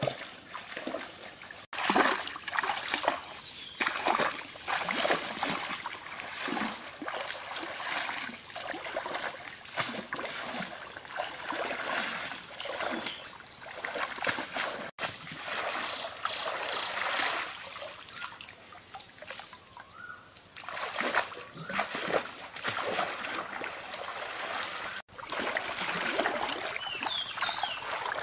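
Water in a shallow stream splashing and sloshing irregularly, with trickling between the splashes, as something moves in the water. The sound breaks off abruptly three times.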